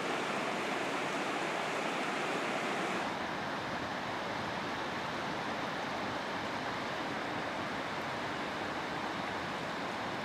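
Rushing river water running over rocks and rapids, a steady rush of noise. About three seconds in it changes to a duller, slightly quieter rush with more low rumble.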